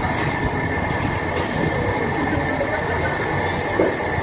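Steady restaurant din: a constant ventilation roar with a faint steady whine, low background chatter, and a couple of light utensil clinks.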